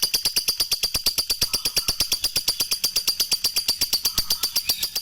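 Lovebird singing a long ngekek: an unbroken, fast chattering run of sharp high notes, about ten a second.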